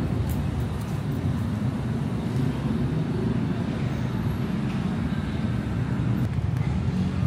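Road traffic: vehicle engines and tyres making a steady low rumble.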